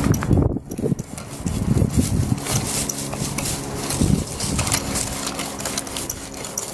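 Long-handled garden hoe scraping and chopping at dry weeds and hard dirt, a run of short gritty scrapes, with dull low thumps of the blade striking the ground in the first two seconds and again about four seconds in. A steady low hum runs underneath.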